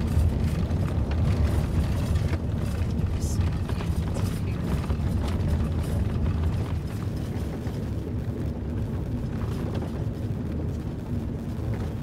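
Vehicle driving on a gravel road, heard from inside the cab: a steady low rumble of tyre and road noise, with a few faint ticks.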